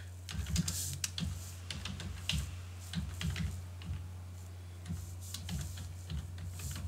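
Computer keyboard typing: irregular runs of key clicks, with a steady low hum underneath.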